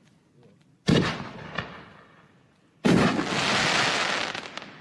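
5-inch consumer artillery shell firework: a sharp thump from the mortar tube as the shell launches about a second in, then the shell bursting about two seconds later with a loud bang, followed by a hissing crackle that fades over a second or so.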